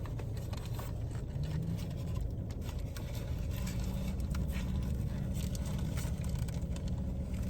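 Steady low hum with light rustling and a scatter of small clicks, as of food packaging being handled.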